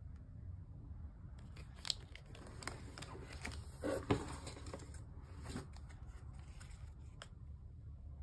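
Plastic snack wrappers crinkling and rustling as hands sort through packaged snacks, with many sharp crackles and taps, loudest about four seconds in.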